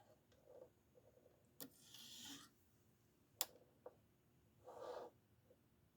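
Near silence with faint handling sounds of a pocket knife: two sharp clicks a little under two seconds apart, a lighter click, and two soft rustles.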